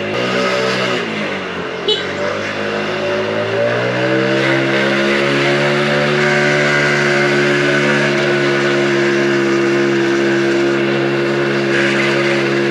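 2022 Mondial Turismo 80cc scooter engine under way: its note sinks over the first second or so, climbs as the scooter accelerates about two seconds in, then holds steady at speed, with wind and road noise.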